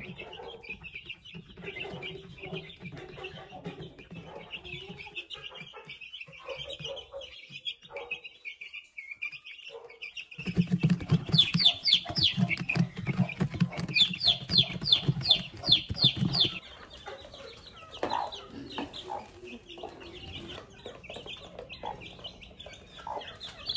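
Chicks peeping continually with short, high, falling calls. For about six seconds in the middle, a louder stretch adds rapid tapping, likely beaks pecking grain from plastic feeder trays, with louder peeps.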